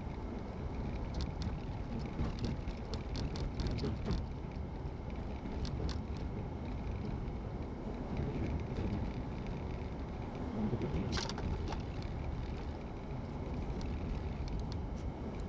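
Steady in-cabin noise of a car driving slowly through town: low engine and tyre rumble, with a few small clicks and rattles.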